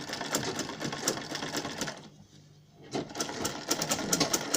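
Sewing machine stitching a seam in two runs, stopping for about a second in the middle.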